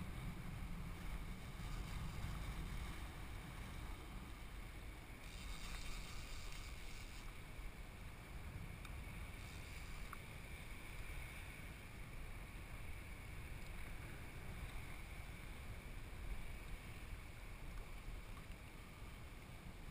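Wind buffeting an action camera's microphone: a steady low rumble with an even hiss over it, brightening briefly about five to seven seconds in.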